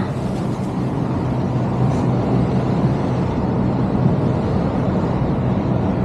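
Steady rushing noise of sea waves breaking and washing over a rocky shore.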